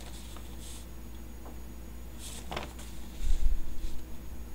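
Sheets of paper rustling in short bursts as a stack of documents is handled and shuffled, with a cluster of low bumps a little past three seconds in, over a steady low hum.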